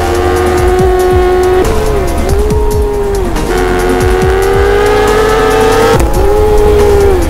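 Yamaha sport bikes' inline-four engines breathing through Akrapovič titanium exhausts at high revs on track. The high engine note holds steady, then dips and climbs back again about four times.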